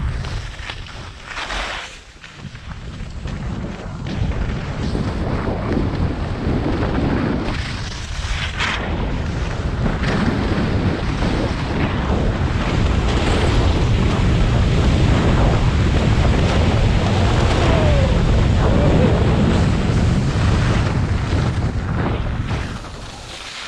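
Wind buffeting the microphone of a camera carried on a fast ski run, a dense rushing noise that builds as the speed climbs to its loudest past the middle and eases off near the end.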